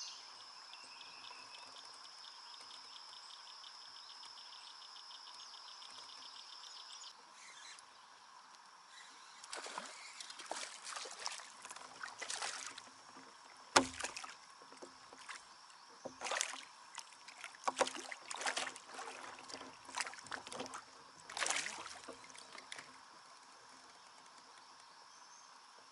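Kayak paddle dipping and splashing in the water in irregular bunches through the middle, with one sharp knock about halfway through that is the loudest sound. A steady high-pitched buzz fills the first several seconds, then stops.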